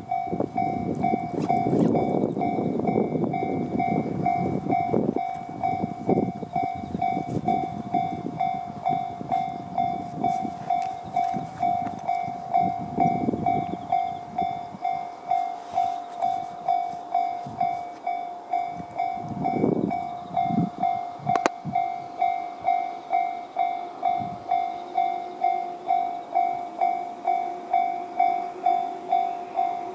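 Japanese level-crossing alarm sounding the JR standard tone, a single electronic ding repeating evenly at about two strokes a second. Under it a 115-series electric train's rumble over the rails is loudest in the first half, swells briefly a few more times, then fades.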